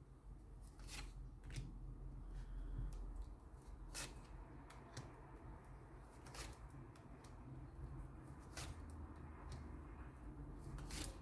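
Tarot cards being shuffled and handled: faint, irregular clicks and soft rustles over a low room hum.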